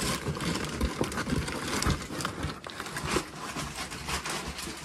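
Cardboard shipping box and its packing being handled and pulled open: irregular rustling and crinkling with a few light knocks.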